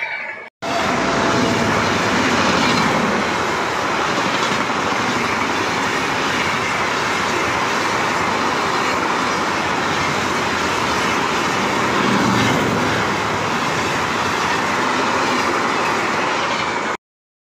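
Indian Railways passenger coaches rolling past close by at speed: a steady rushing rumble of wheels on rail with the clickety-clack of rail joints. It cuts off suddenly near the end.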